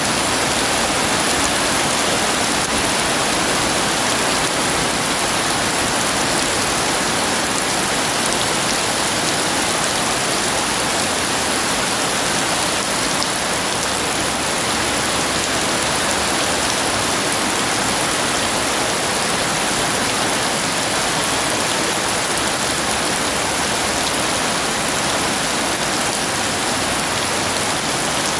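Heavy rain pouring down steadily, an even, unbroken hiss of the downpour.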